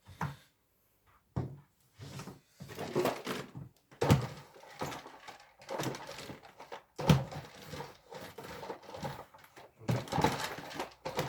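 Irregular knocks, thunks and rustling of objects being handled and set down, with no motor running.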